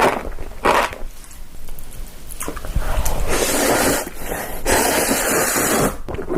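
Close-miked eating sounds: a couple of short bites, then longer stretches of dense crunching and chewing.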